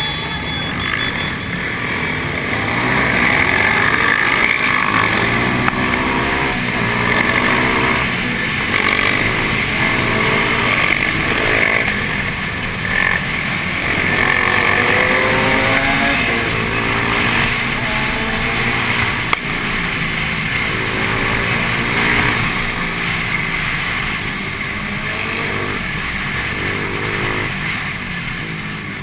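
Sport motorcycle engines accelerating hard, the pitch climbing through each gear and dropping at the shifts again and again, with wind rushing past the moving microphone.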